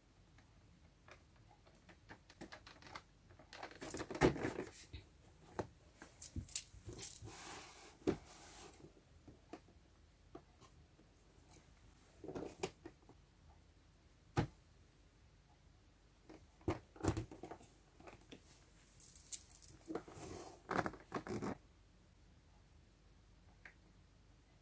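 Cardboard toy box being handled and turned in the hands: faint scattered scrapes, rubs and taps of fingers on the card, in brief clusters a few seconds in, around the middle and again near the end.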